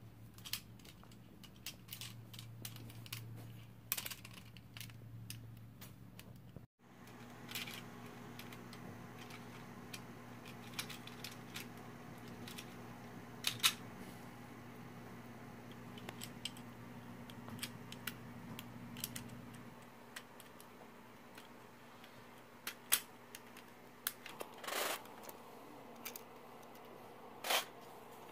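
Small plastic robot-kit parts clicking and tapping as they are handled and fitted together: scattered light clicks, a few louder ones, over a faint steady low hum.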